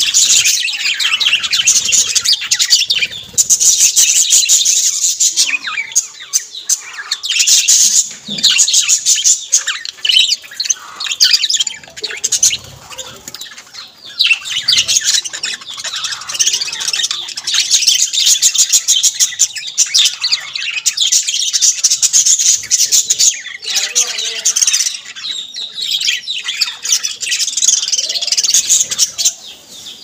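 A flock of budgerigars chattering and chirping continuously, a dense run of rapid high calls that dips only briefly now and then.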